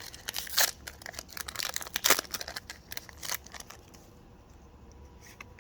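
Foil Pokémon TCG Chilling Reign booster pack being torn open and crinkled: a run of sharp crackles that dies down about four seconds in.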